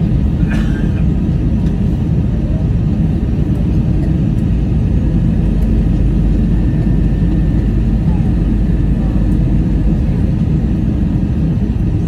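Steady low rumble of an Airbus A321's CFM56 turbofan engines and rushing air, heard inside the cabin from a window seat behind the wing.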